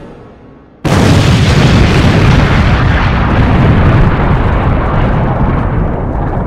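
Intro sound effect: a sudden, very loud explosion-like boom about a second in that carries on as a dense, bass-heavy rumble, its hiss slowly dying away over the following seconds.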